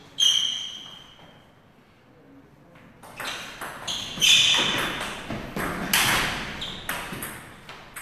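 A table tennis rally: the ball clicking off bats and the table in quick, uneven succession, picking up about three seconds in and running on to the end. One sharp, ringing ping comes just before.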